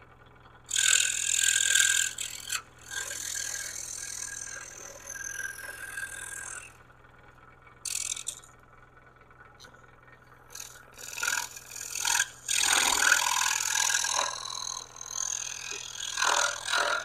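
Scroll saw running and cutting stars out of a wooden panel, in several stretches that start and stop, with a faint steady low hum underneath.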